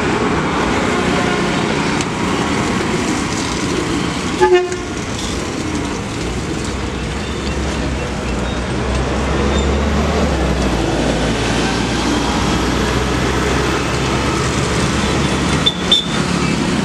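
Steady roadside traffic noise with a short vehicle horn toot about four and a half seconds in and a low rumble of a heavy vehicle passing around the middle. A sharp metallic clank comes near the end.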